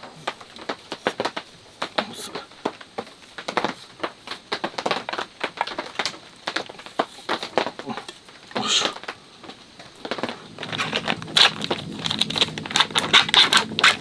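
Wide cleaver-style knife scraping and cutting the skin off a pear in short, scratchy strokes. In the last few seconds a denser crinkling crackle takes over, like plastic packaging being handled.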